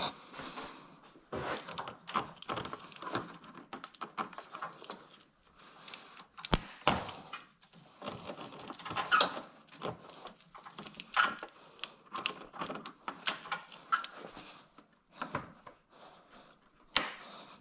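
Irregular knocks, clicks and rattles of radiator and cooling-system parts being handled and fitted into place, with one sharp knock about six and a half seconds in.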